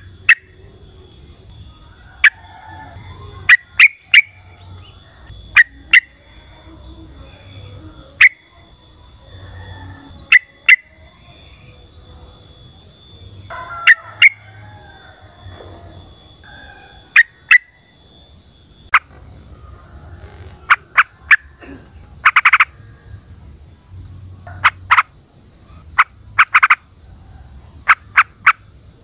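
Yellow-vented bulbul calling in short, sharp, loud chirps that come singly and in quick clusters, with one longer call a little past two-thirds through. Behind them, insects chirp in repeated pulsing trains over a steady high drone.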